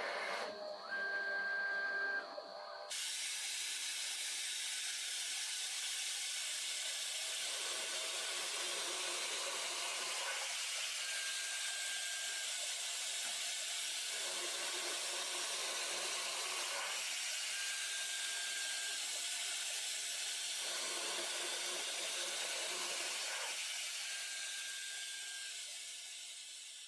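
Vacuum extraction running with a steady hiss beside a lathe cutting a conical thread on steel in repeated automatic passes. A cycle repeats about every six to seven seconds: a rumble during the cut, then a short high whine.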